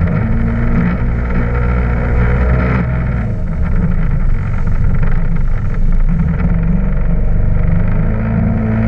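Yamaha WaveRunner jet ski engine running at speed, a steady loud drone with the rush of water from the wake. The engine note shifts about three seconds in.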